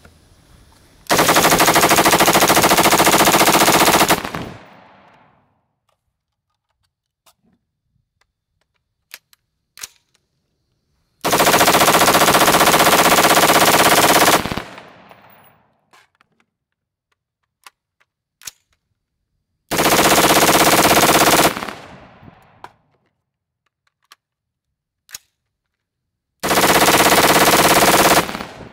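AR-15-style rifle firing 5.56 hot loads in rapid fire, as fast as the trigger can be worked, to stress-test its bolt carrier group. Four long strings of rapid shots, each two to three seconds, with faint clicks in the pauses between them.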